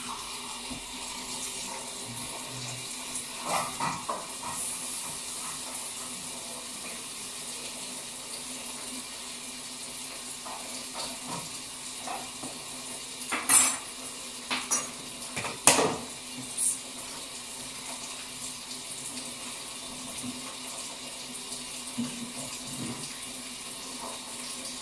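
Dishes being washed at a kitchen sink: tap water running steadily, with scattered clinks and clatters of dishes and cutlery, the loudest two a little past the middle.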